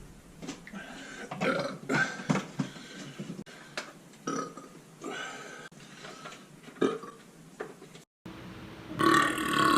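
A man burping repeatedly: a string of short burps, then, after a brief break about eight seconds in, a louder, longer burp whose pitch wavers near the end.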